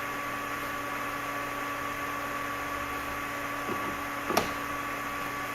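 Steady electrical hum with a high whine and a hiss from the running HVAC control test board, with one sharp click about four seconds in, typical of a relay or control being switched as the snowmelt controller is put into test mode.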